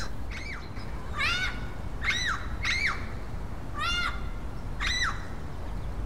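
Yellow-headed Amazon parrots squawking: about six short, harsh calls roughly a second apart, each rising then falling in pitch.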